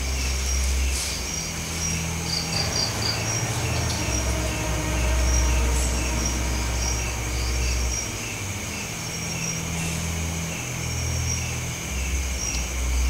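Crickets chirping, a high, regular chirp about twice a second, over a steady low droning rumble that swells and shifts every second or two.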